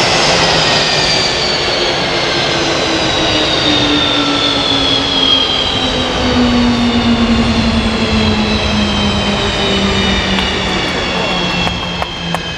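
Jet engines of Blue Angels F/A-18 Hornets whining with a pitch that falls slowly and steadily, the sound of the turbines winding down as the engines are shut down.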